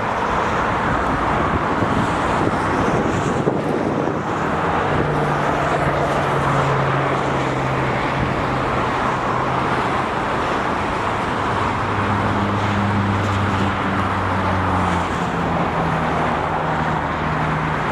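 Steady road traffic noise from motor vehicles, with the low hum of engines coming and going at changing pitches.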